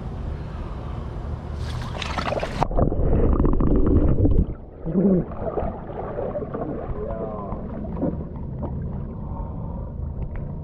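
Ice water sloshing and splashing in a cold-plunge tub as a man rises and climbs out, water pouring off him, with short voice sounds from him after the loudest splashing.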